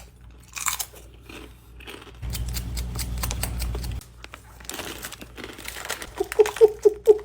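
Crunching and chewing of crispy fried chicken skin close to the microphone, in scattered crackly bites. Near the end a person's voice comes in as short, quickly repeated sounds.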